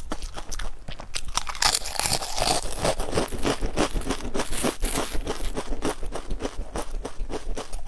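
Stacked potato crisps being crunched and chewed close to the microphone: a dense run of sharp crackles, with a louder, fuller stretch about two seconds in.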